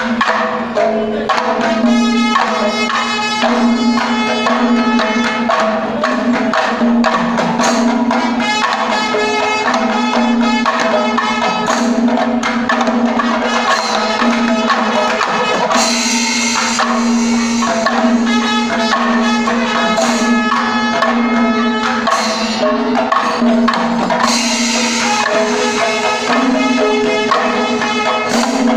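Panchavadyam, the Kerala temple percussion ensemble, playing continuously: a dense, loud rhythm of timila hourglass drums over ringing cymbals.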